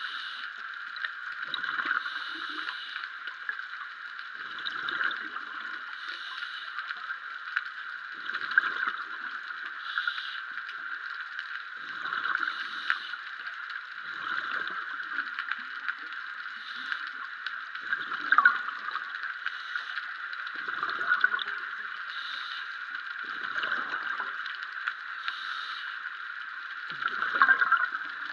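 Scuba diver's exhaled bubbles gurgling from the regulator, a burst about every three seconds, over a steady underwater hiss.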